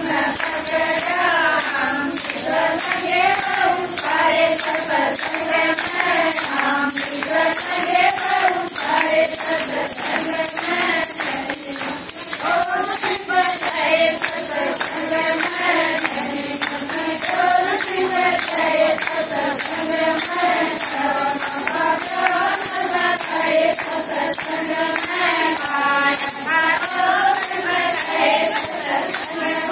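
A group of women singing a Haryanvi devotional bhajan to Khatu Shyam together, over a steady beat of jingling percussion.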